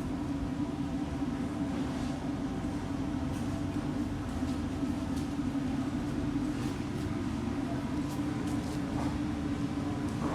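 A steady low engine drone with a strong, even hum that holds at one pitch throughout, and a few faint ticks over it.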